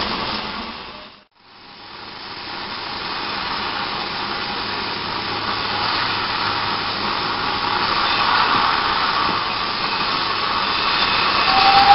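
Steam-hauled train heard from an open carriage window while running: a steady rushing of wind, wheels and exhaust that builds gradually after a brief dropout about a second in. A steady whistle tone begins right at the end.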